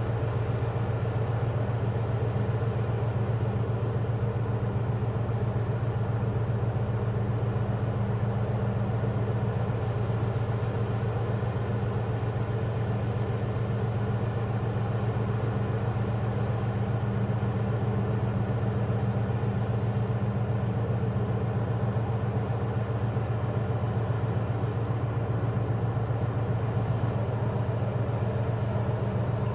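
Steady low mechanical hum, a deep drone with a fainter higher tone above it, holding the same pitch and level throughout.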